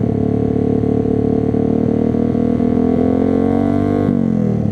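125 cc pit bike engine idling steadily, its revs creeping up slightly and then dropping away about four seconds in.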